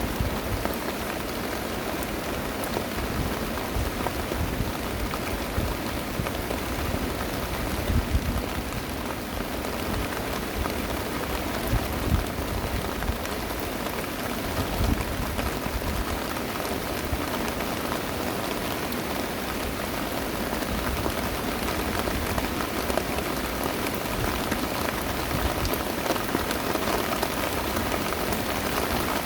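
Heavy rain pouring down in a steady, dense patter, with a few brief low thuds standing out now and then.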